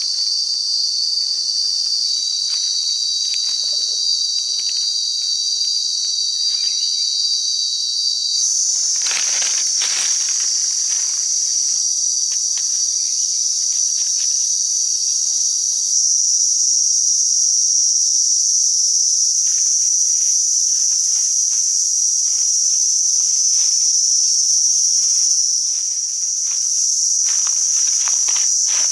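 Dense chorus of forest insects: a steady, shrill high buzz that steps up slightly in pitch about eight seconds in and grows louder about halfway through, over faint scattered rustles and clicks.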